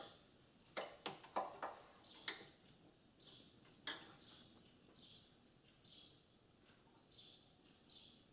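A few light metal clinks and taps in the first four seconds as a steel footrest bar and its bolt are handled and lined up against the frame. After that, faint short high chirps of a small bird repeat every half second or so.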